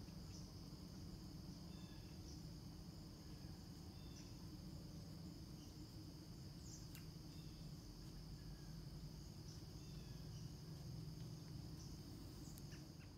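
Crickets trilling steadily and faintly in the early-morning countryside, with a few short faint chirps and an occasional tiny tick over a low background rumble.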